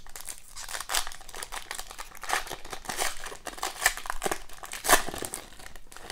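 Foil wrapper of a hockey trading-card pack being torn open and crinkled by hand: an irregular run of crackles, the sharpest about five seconds in.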